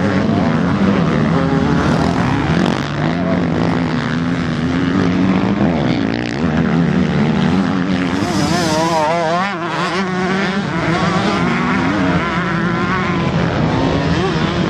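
Motocross dirt bikes racing past close by, several engines running at once and revving up and down as the riders work the throttle. About eight seconds in, one engine note rises and wavers sharply in pitch for a couple of seconds.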